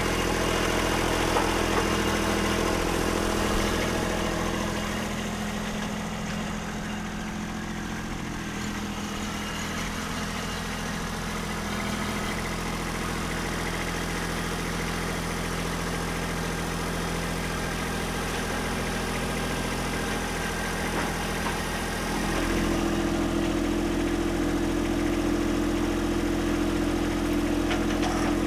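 Kubota B2601 compact tractor's three-cylinder diesel engine running steadily; about twenty-two seconds in its note changes and it gets louder.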